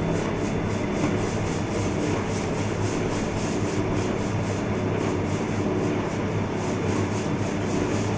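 Cincinnati Milacron engine lathe running: a steady mechanical hum with a faint regular pulse about three times a second.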